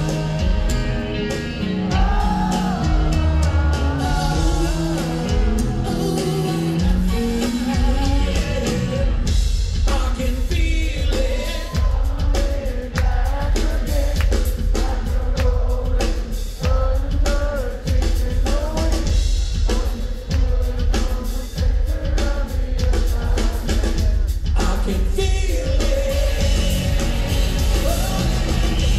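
Rock band playing live in a concert hall, with a lead vocal over drum kit and bass, heard from the audience. The drums come in harder about nine seconds in.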